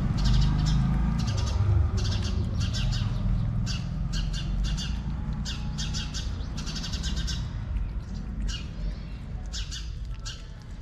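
A mother cat and her kittens eating meat from a plate: quick, wet chewing and smacking clicks in bursts of several a second, thinning out near the end, over a low rumble.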